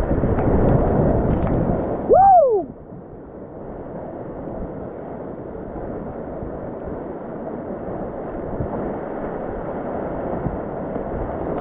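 Rushing river whitewater, with wind and water buffeting the microphone, loudest in the first two seconds. About two seconds in comes a brief pitched sound that rises and then falls. After that the water settles into a steadier, quieter rush.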